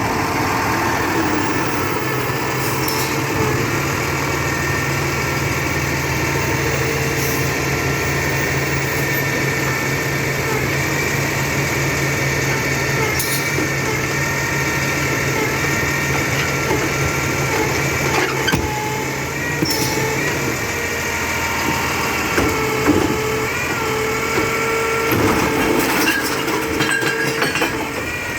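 Labrie Expert 2000 recycling truck's engine running steadily, with a whine that rises and dips and a few sharp knocks along the way.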